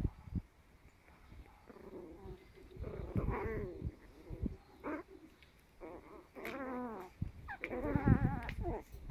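Ten-week-old Chihuahua puppies play-growling and whining as they wrestle, in several short wavering bouts, the loudest near the end.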